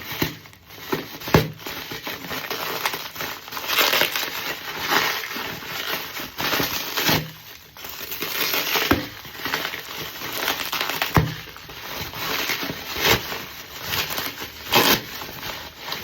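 Packaging crinkling and rustling as a parcel is opened by hand, with several sharp clicks and knocks.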